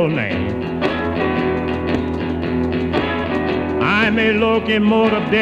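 Old blues song playing from a vinyl record, in mono: a guitar-led passage between sung verses, with a wavering melody line coming in about four seconds in.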